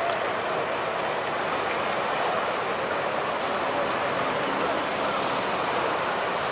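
Tsunami floodwater surging through the town below, a steady rushing noise without a break.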